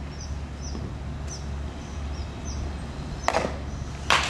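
A baseball smacking into a catcher's leather mitt: two sharp smacks near the end, about a second apart, the second the louder. Faint bird chirps throughout.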